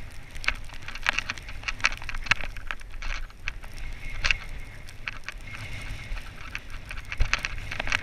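Wind and motion noise from gliding downhill over fresh powder snow, a steady low rumble on the microphone, with many irregular sharp clicks and crackles on top.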